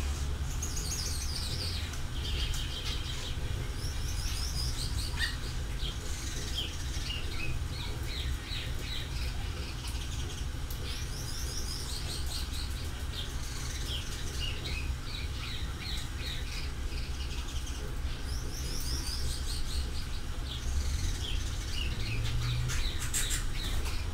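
Small birds chirping over and over in quick falling notes, in clusters throughout, over a steady low rumble.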